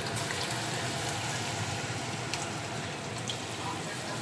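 Marinated chicken pieces deep-frying in hot oil in an aluminium kadai: a steady sizzle with a few sharp pops.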